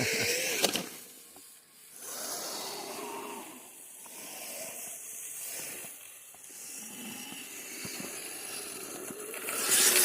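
Electric motors of a radio-controlled Kyosho Blizzard tracked snow vehicle whining as it is driven through snow, the pitch rising and falling with the throttle over a light hiss.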